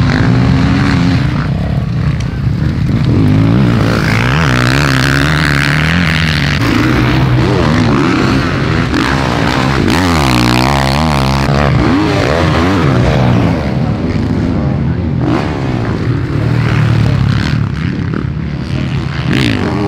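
Several motocross bikes' engines revving hard, their pitch repeatedly rising and falling as they accelerate and shift, with more than one bike heard at once.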